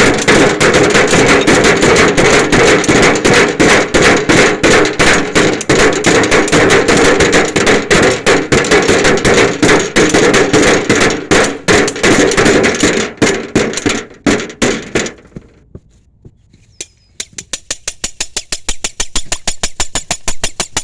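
Rapid, dense hammering, many blows a second, which stops about fifteen seconds in. After a short lull, quick even taps start again at about five a second.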